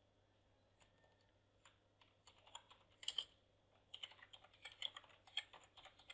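Faint computer keyboard typing. A few scattered keystrokes come first, then a fast run of key presses from about four seconds in.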